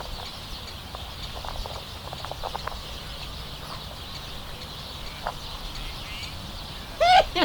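Steady low rumble of wind on the camera microphone, with a few faint short bird chirps. Near the end a louder sliding pitched sound comes in.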